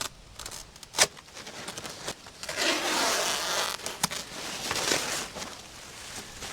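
Woven geotextile fabric rustling and scraping as it is handled and pulled, with a sharp crack about a second in and a louder stretch of rustling in the middle.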